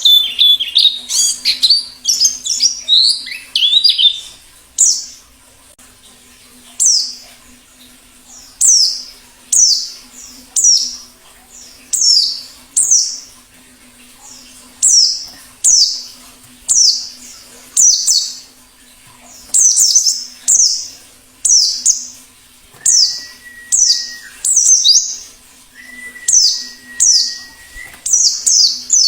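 Pleci (white-eye) singing in the 'ngalas' style: a long run of high, quick, downward-slurred chirps, coming in bursts about once a second.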